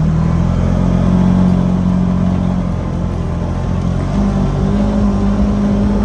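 Engine of a farm utility vehicle running steadily as it drives across a paddock. Its drone dips in pitch about three seconds in and rises again a second or so later as the speed changes.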